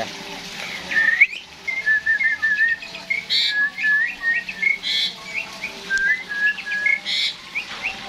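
Asian pied starling singing: a run of short, clear whistled notes with three harsh rasping bursts about a second and a half apart, mixed with a man whistling to the bird.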